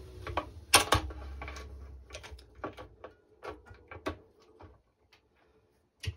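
Scattered clicks and taps of hands handling a racquet's strings and frame on a stringing machine, with a sharp knock about a second in. The clicks thin out after about four seconds.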